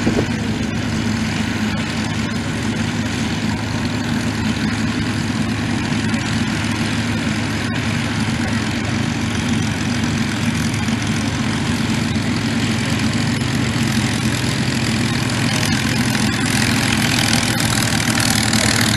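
Spitfire fighters' V12 piston engines running at taxiing power as the aircraft roll past close by, a steady low engine note that grows a little louder near the end.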